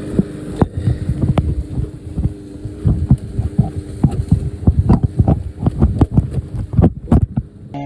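Muffled, irregular thumps and rubbing from a phone that is recording while it is carried or handled, about two or three knocks a second over a steady low hum. The handling noise stops abruptly near the end.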